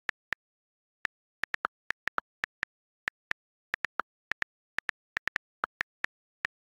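iPhone on-screen keyboard key clicks as text is typed, irregular taps about four a second, a few of them lower in pitch, with dead silence between them.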